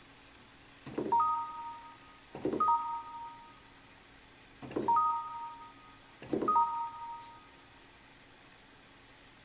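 Electronic keyboard (Electone) sounding a two-note chime four times, as two pairs about a second and a half apart, each with a soft key thud at its start. This is a keyboard imitation of a warning or chime sound effect.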